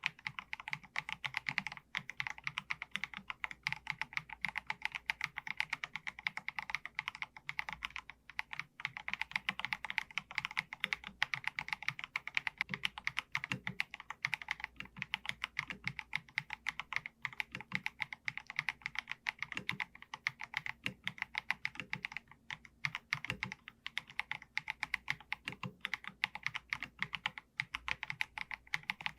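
Continuous fast typing on an Akko MG108B mechanical keyboard with Akko V3 Piano Pro switches: a dense, even stream of keystrokes, each a crisp clack with a low thud underneath.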